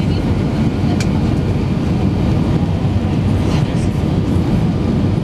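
Steady low rumble of an airliner cabin on final approach, engine and airflow noise heard at a window seat, with one faint click about a second in.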